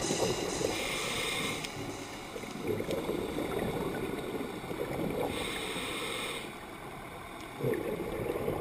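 Scuba diver's regulator breathing heard underwater: a hissing inhalation about a second long near the start and again about five seconds in, with bubbling exhalations in between, over a steady underwater rumble.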